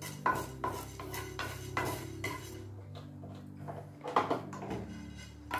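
Wooden spatula stirring and scraping fennel seeds and cardamom dry-roasting in a nonstick frying pan: a run of short taps and scrapes, a brief pause, then a few more strokes after about four seconds.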